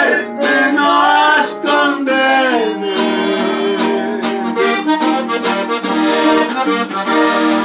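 Button accordion playing a norteño melody run between sung lines, over a guitar accompaniment.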